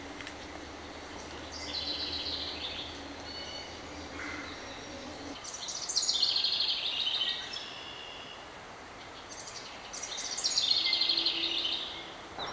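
A songbird singing three phrases about four seconds apart, each a fast run of notes falling in pitch, over faint woodland background noise.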